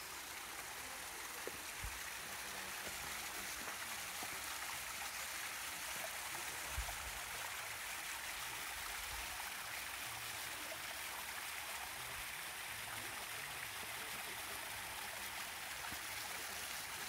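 Small waterfall running in thin streams down a rock face into a creek, a steady rushing trickle. A couple of soft low bumps sound in the first half.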